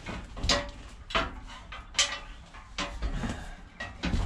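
A metal blower rack being handled while carriage bolts are fed through its holes: a string of sharp clanks and knocks about once a second, with light rattling between them.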